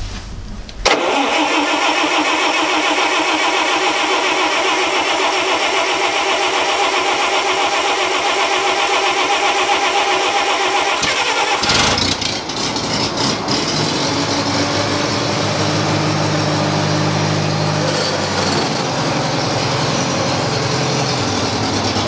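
Bobcat 610 skid steer's air-cooled Wisconsin four-cylinder engine cranking on the starter for about ten seconds with the choke pulled and the throttle set a little up, then catching about halfway through and running steadily. It is a long, hard cold start: the engine is cold-blooded and doesn't like starting in the cold.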